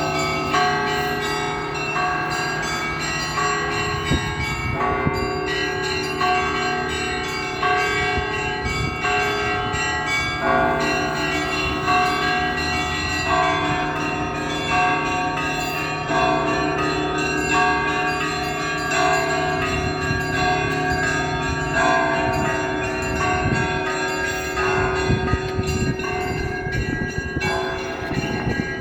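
Russian Orthodox church bells rung together: several bells of different pitches struck in a quick, repeating pattern, over the low hum of a large bell that carries on underneath.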